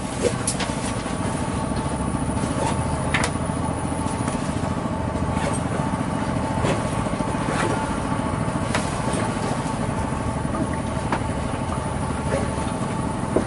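A small engine running steadily, with a few faint clicks over it.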